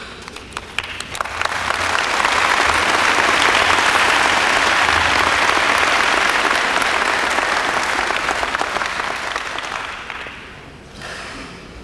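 Audience applauding: scattered claps at first that swell into full applause within about two seconds, hold steady, then die away near the end.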